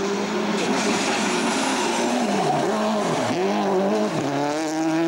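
Rally car's turbocharged four-cylinder engine driven hard on a stage. The revs drop steeply twice, about halfway through and again near the end, and climb back each time as it brakes and shifts, with some tyre noise.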